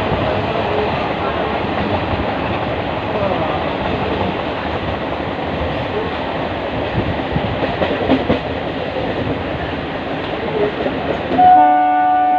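Indian Railways train running with a steady rumble and rattle. About eleven seconds in, a train horn sounds loud and holds steady.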